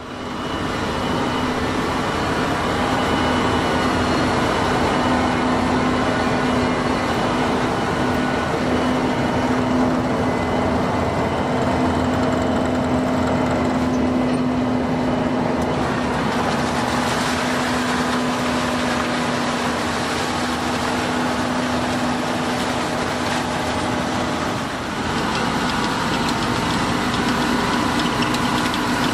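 Fendt 724 Vario tractor running steadily under load, pulling an Edenhall 754 four-row trailed sugar beet harvester with its lifting and cleaning machinery working, and a steady hum. The mix changes abruptly about halfway through and again a few seconds before the end.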